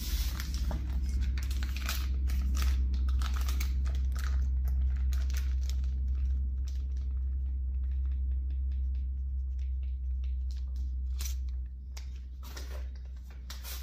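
Plastic packaging crinkling and rustling in the hands, with many short sharp crackles, while pork is seasoned for marinating. A steady low rumble runs beneath and drops near the end.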